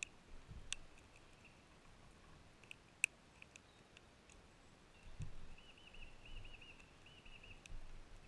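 Newly lit campfire of damp wood crackling quietly, with scattered sharp pops; the loudest pop comes about three seconds in. A faint warbling high tone and a few low thuds come in the second half.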